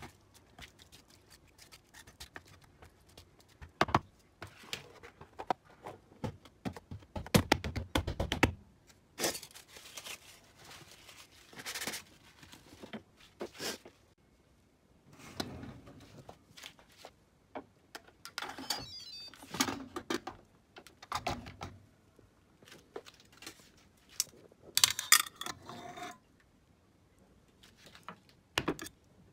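Kitchen handling sounds: chopsticks knocking and scraping against a plastic food container as marinated chunks are stirred, then scattered knocks, clicks and brief rustles as the container is handled and put away.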